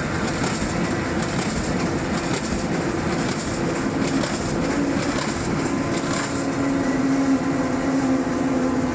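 Fully automatic 4-colour corrugated-carton printing and die-cutting machine running: a loud, steady mechanical clatter, with a hum that grows stronger about halfway through.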